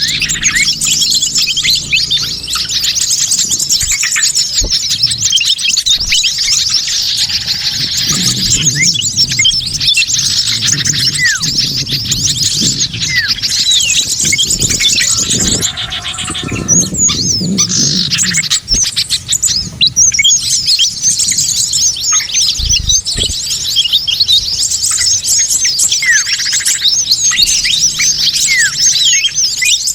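A dense, noisy chorus of many small birds chirping and calling over one another, with quick high chirps and whistled sweeps that run without a break. It is a mixed-species bird lure recording of an excited flock. A lower-pitched sound sits underneath from about a third of the way in to past the middle.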